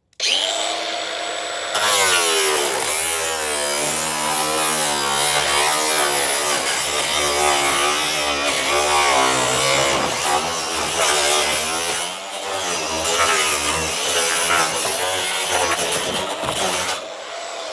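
Angle grinder starting up, then cutting through a stack of about five mobile-home skirting panels at once; its whine wavers up and down in pitch as the disc loads in the cut. It shuts off near the end.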